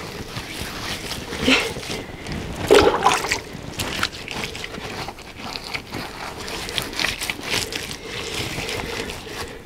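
Wet mud being spread and smoothed by hand over a brick oven top: irregular soft wet slaps and scrapes, loudest about three seconds in.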